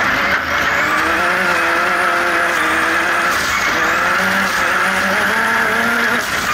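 Turbocharged off-road race buggy engine under hard acceleration, heard from inside the cockpit, its revs climbing and dropping several times through gear changes over a loud rush of wind and gravel. The engine is running on limp-home wastegate spring pressure only, well down on boost.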